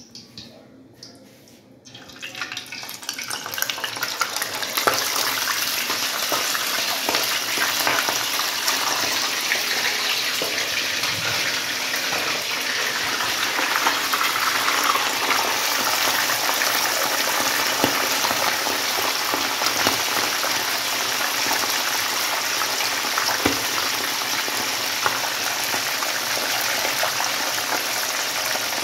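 Whole mojarra fish frying in hot oil in a pan: the sizzle starts about two seconds in as the fish goes into the oil, builds over the next couple of seconds, then holds as a loud, steady hiss with scattered small crackles.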